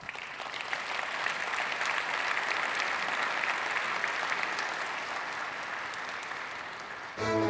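Audience applauding: the clapping starts suddenly and eases off slightly. Just before the end it gives way to music.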